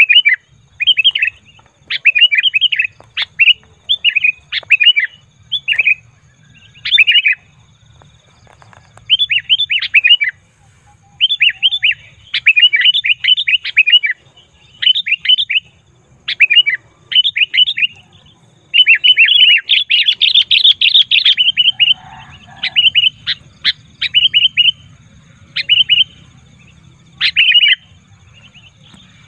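Sooty-headed bulbul (kutilang) calling: short, quick chattering phrases of rapid notes, each about half a second to a second long, repeated after brief pauses. About two-thirds of the way through comes one longer, louder run of calls.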